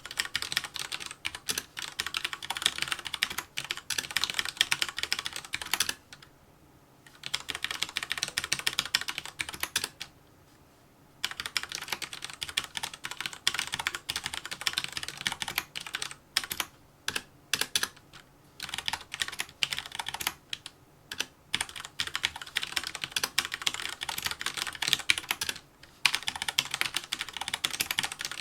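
Fast touch-typing on a mechanical keyboard with red linear switches: rapid runs of keystroke clicks and clacks, broken by short pauses of about a second.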